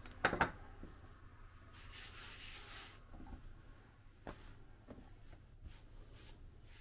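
Faint rubbing and a few light taps as hands work pide dough on a baking sheet, with one short, louder sound just after the start.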